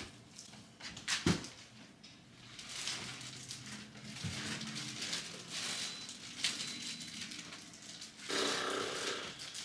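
Clear plastic wrap crinkling and rustling as a large wrapped vanity mirror is handled, with a sharp knock about a second in.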